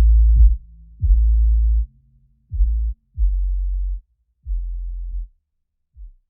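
Background music made of deep electronic bass-drum hits, each sweeping down into a held sub-bass note, roughly one to two a second, with no higher sounds.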